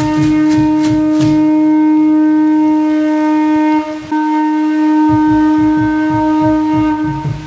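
Conch shell trumpet blown in two long, steady blasts: the first is held for about four seconds, there is a short break for breath, and the second lasts about three seconds. A low drum beats steadily under it at the start and again in the second half.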